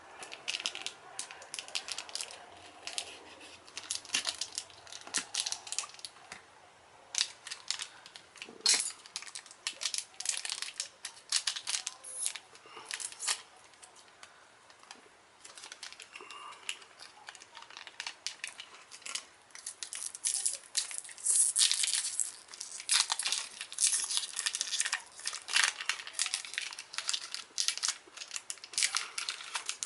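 A toy dog-tag package being torn open and handled, its packaging crinkling and tearing in irregular crackles. There is a quieter stretch around the middle, and the crinkling is busier and louder in the second half.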